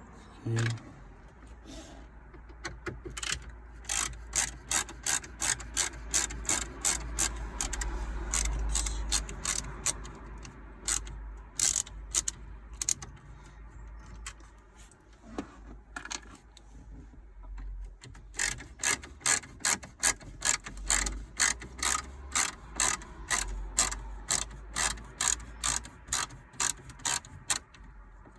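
A ratcheting driver clicking in two long runs, a few clicks a second, while it undoes the Torx screws holding the dashboard screen, with a short pause between runs.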